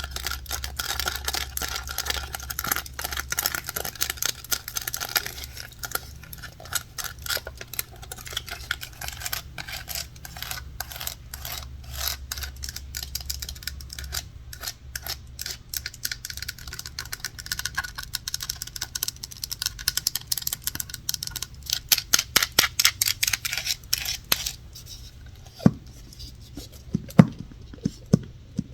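Fingernails scratching and tapping on hard surfaces in a close, dense stream of clicks. Near the end comes a quick run of sharp taps, then a few soft, separate knocks.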